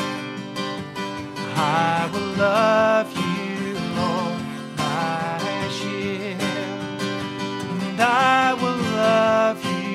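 A man singing a worship song, accompanying himself on a strummed acoustic guitar.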